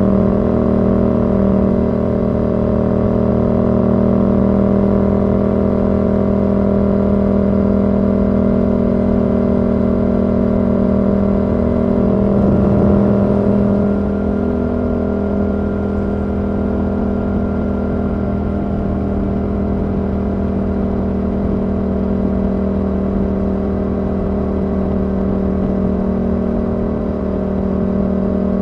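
Yamaha R7's 689 cc parallel-twin engine through a Yoshimura R77 exhaust, running at a steady speed with an even drone. About twelve seconds in the note wavers for a second or two, then settles again slightly quieter.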